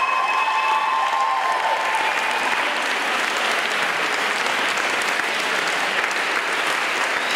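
Audience applauding steadily after a dance performance ends, with a few high-pitched calls over the clapping in the first two seconds.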